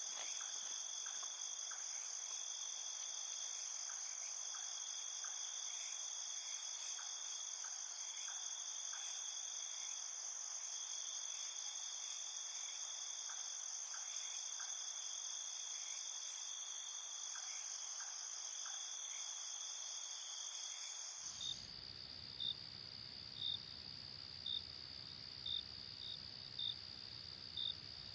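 Night insect chorus of crickets: steady, high trilling with a pulsing, shimmering beat. About two-thirds of the way through it cuts abruptly to a different layer: a steady high drone with a single cricket chirping about once a second.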